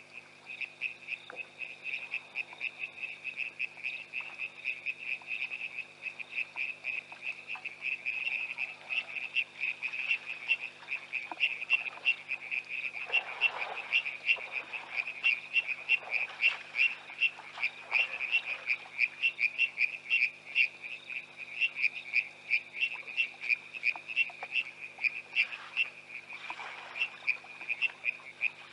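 Chorus of frogs calling: a dense run of quick, high-pitched pulsing calls, several a second, growing louder after the first several seconds.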